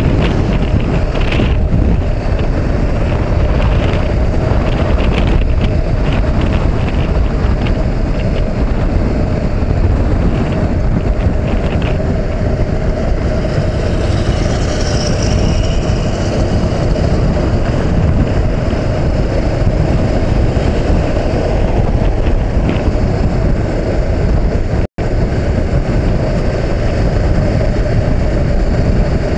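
Wind rushing over an action camera's microphone on a Honda CB500X motorcycle at freeway speed, with the bike's parallel-twin engine running steadily underneath. The sound drops out for an instant near the end.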